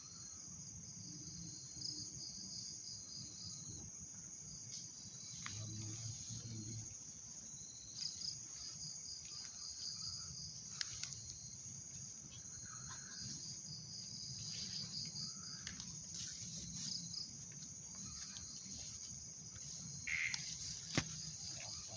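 Crickets chirping: a constant high ringing with trains of rapid chirps that come and go. A few faint clicks and knocks sound over it, the sharpest near the end.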